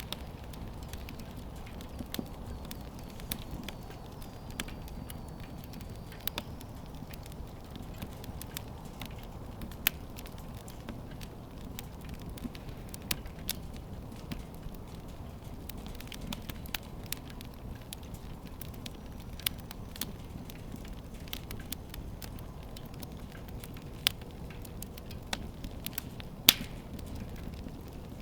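Irregular sharp crackling clicks over a steady low rumble, with one louder pop near the end.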